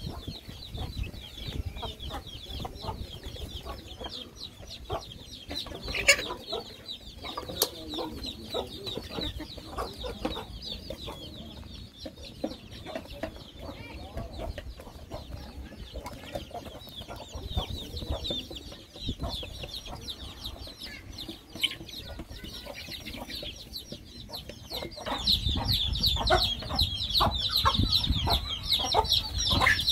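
A flock of chickens clucking and pecking feed off a sack spread on the ground: a steady stream of small taps under a run of short high calls. It gets louder and busier in the last few seconds.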